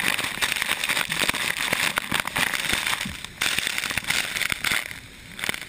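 Rushing flash-flood water splashing right at a wet camera's microphone: a dense, crackling rush full of sharp pops, dipping briefly twice.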